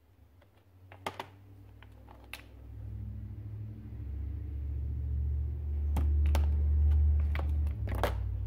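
Glass ink bottles knocking and clinking against each other and the plastic storage box as they are picked up and set back: a scatter of sharp clicks, several in quick pairs. A low rumble runs under them, growing louder through the middle and end.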